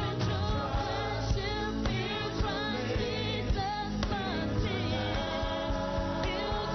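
Gospel worship song: voices singing with vibrato over a band with bass and regular drum hits.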